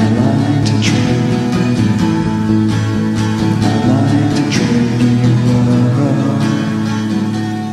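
Indie pop band recording led by strummed guitar, with sustained chords underneath. The music starts to fade out near the end.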